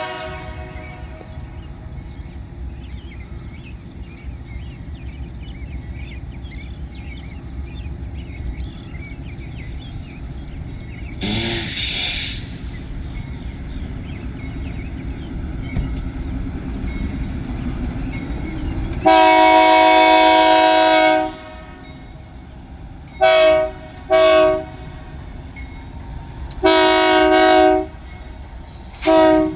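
Diesel locomotive (BNSF C44-9W) approaching with a steady low rumble, with a brief loud burst of sound about eleven seconds in. About two-thirds through, its air horn sounds in long and short blasts: one long, two short, another long, and a short one at the end.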